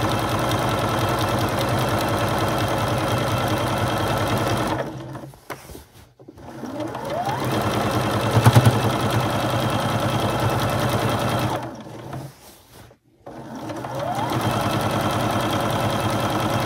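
Electric sewing machine running steadily as it stitches a hem, slowing to a stop twice, about five and twelve seconds in, and starting up again each time.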